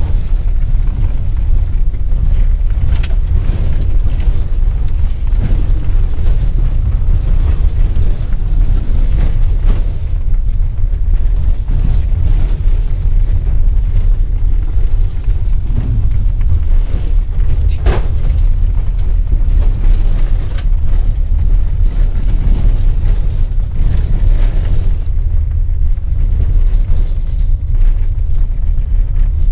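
A vehicle driving along a rough, rutted dirt track, heard from inside the cab: a loud, steady low rumble of engine and road noise, with scattered knocks and rattles as it jolts over bumps and ruts. The sharpest knock comes about eighteen seconds in.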